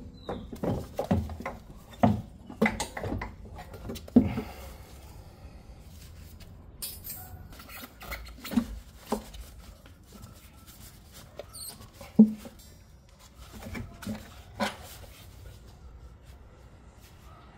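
Irregular knocks and clanks of tools and metal parts being handled during work on a car's rear suspension. The knocks come thick at first and thin out, with a sharp louder knock about twelve seconds in.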